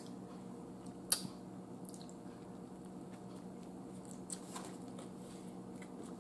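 Soft, wet mouth sounds of biting and chewing a chicken salad sandwich, with a few sharp clicks, the loudest about a second in, over a steady low hum.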